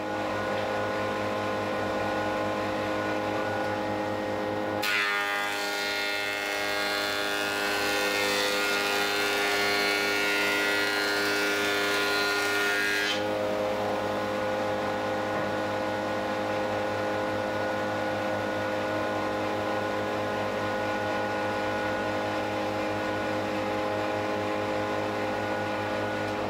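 Metabo HC 260 planer-thicknesser running with a steady motor drone. About five seconds in, a board starts passing through the cutter with a loud hiss of planing, which stops suddenly about eight seconds later, and the machine runs on without load.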